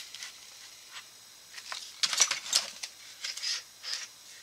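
A punch set and its packaging being handled: a string of light clicks and rattles, coming in two clusters about two and three and a half seconds in.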